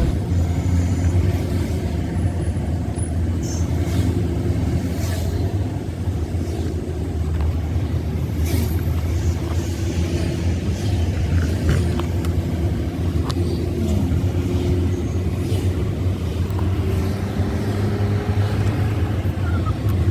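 Truck engine and road noise heard from inside the cab while driving: a steady low drone, with a few light clicks and rattles.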